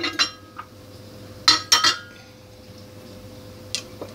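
Cooking utensils clinking against a wok as the tofu is stirred: a few short clinks with brief ringing, two near the start and a quick run of three about one and a half to two seconds in, over a faint steady hum.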